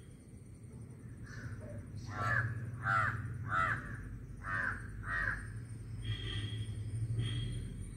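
A crow cawing: a run of about five harsh caws in quick succession through the middle, then two fainter, higher calls near the end.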